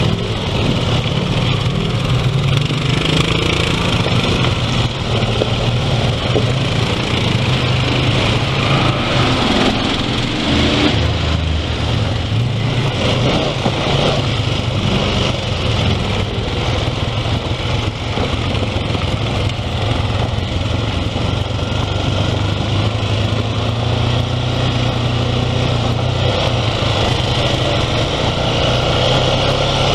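Four-wheeler (ATV) engine running steadily while being ridden along a dirt and gravel trail, heard from the riding machine itself. The engine note drops lower about ten seconds in.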